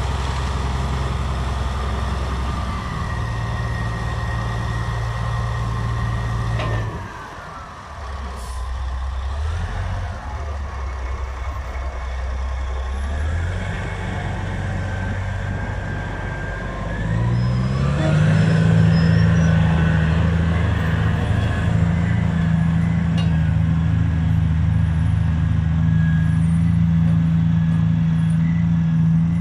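Caterpillar 773D off-highway dump truck's large diesel engine running at the tip, with a higher whine that slides up and down in pitch. About seventeen seconds in, the engine revs up and holds louder and higher as the truck pulls away.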